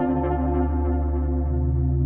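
Background music: a sustained synthesizer chord over a steady low bass note, its upper notes fading away.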